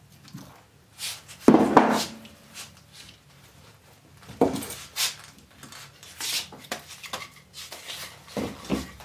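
Sawn log rounds being lifted and set down, knocking against each other and the floor, with bark scraping on wood between the knocks. The loudest knocks come about one and a half seconds in.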